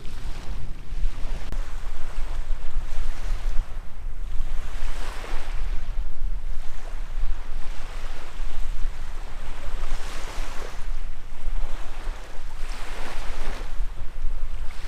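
Wind rumbling on the microphone over water washing and splashing, with the splashing swelling every two to three seconds.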